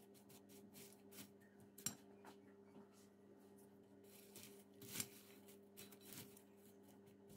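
Faint rustling and light taps as caramel-coated popcorn is turned over in a glass bowl with a silicone spatula and spoon. Two slightly louder knocks come about two and five seconds in, over a faint steady low hum.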